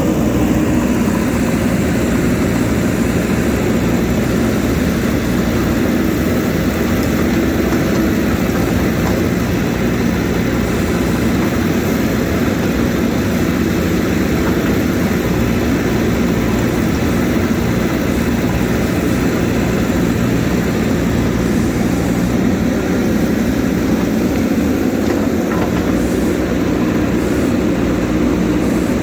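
A steady, loud mechanical drone with several held tones over a rumble, unchanging throughout.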